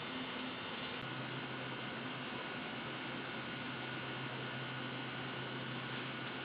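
Steady electrical hum and hiss. A brief click about a second in, after which a low hum grows stronger and holds steady.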